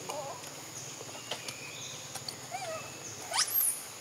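Infant macaque giving a few short, arched cries over a steady high insect drone. Near the end comes a louder, fast-rising squeal.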